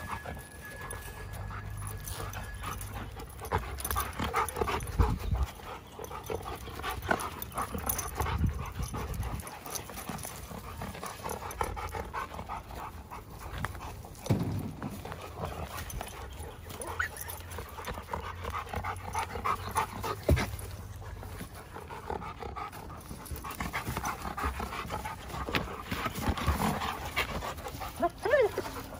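Giant Schnauzers play-wrestling, panting, with irregular bursts of dog noise as they tussle.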